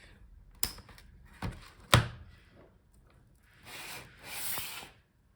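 Laptop's plastic bottom case being pried off the palm rest: three sharp clicks of clips letting go, the loudest about two seconds in, then two stretches of plastic scraping along the seam.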